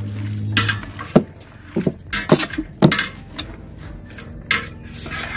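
Metal skimmer knocking and scraping against a large stainless steel pot, a few irregular clinks and knocks while marinated chicken pieces are stirred. A low steady hum stops about a second in.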